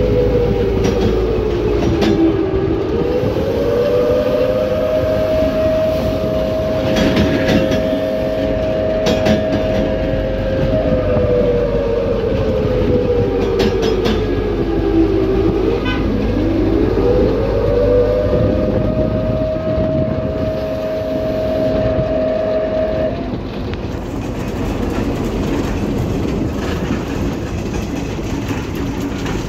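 Road vehicle driving along, heard from on board: a steady low rumble with a whining tone that falls as it slows, climbs as it picks up speed and holds level while cruising, twice over. The whine fades out a few seconds before the end while the rumble goes on, with a few brief knocks near the middle.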